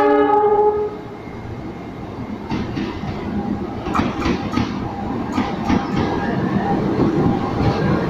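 A CC206 diesel-electric locomotive sounds its horn in one chord that ends about a second in. The locomotive then runs light toward the listener, its engine and wheel noise growing louder. A series of clacks from the wheels crossing rail joints comes between about two and a half and six seconds in.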